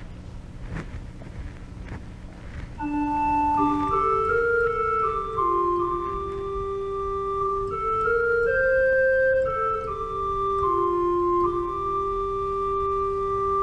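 Organ playing a slow introduction to a sung responsorial psalm: held chords with a moving top line come in about three seconds in, after a quieter stretch with a low hum.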